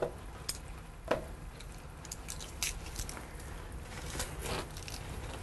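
Garlic cloves squeezed through a hand-held metal garlic press: quiet squishing and crunching with scattered small clicks.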